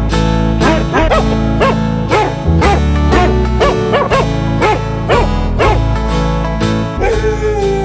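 Background music led by plucked guitar, with a quick, even beat of about three strikes a second and a note that slides downward near the end.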